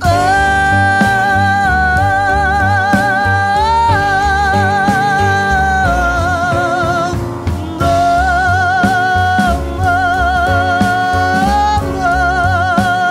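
Jazz song: a woman singing long held notes with vibrato, backed by a band with bass and drums.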